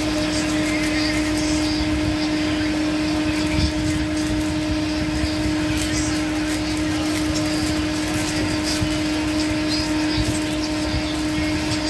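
A steady mechanical hum at one fixed pitch, with a few light crinkles of a plastic food sachet being opened and shaken out.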